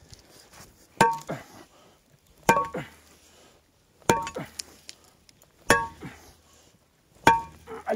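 Pickaxe with a metal handle striking hard, stony soil: five heavy blows about a second and a half apart, each with a short metallic ring.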